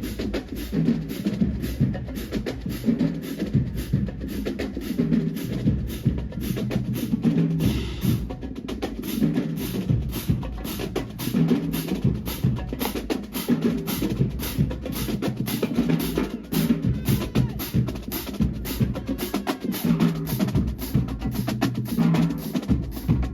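Marching band drumline playing a fast, steady drum cadence of snare and bass drums.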